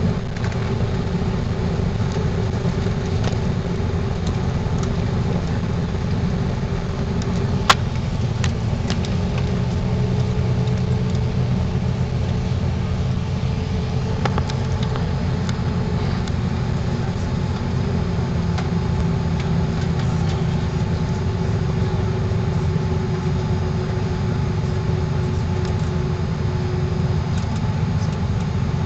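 Airbus A330-300's Pratt & Whitney PW4000 turbofans running at taxi power, heard inside the cabin as a steady low rumble with a faint hum. One sharp click about eight seconds in.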